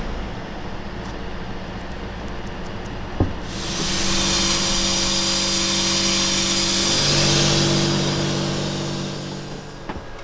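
A handheld disinfectant fogger starts a few seconds in and runs with a loud steady hiss and a thin high whine over a motor hum, spraying mist to neutralise odour in a car's air ducts, then fades near the end.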